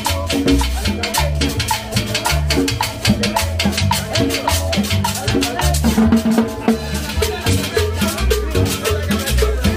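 A live Latin dance combo band playing an up-tempo number. A bass line steps from note to note under fast, dense shaker and percussion ticks, with no singing.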